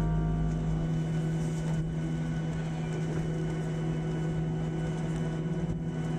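Steady hum and low drone of a Boeing 737 jet airliner after landing, with the tail of background music fading out about a second in.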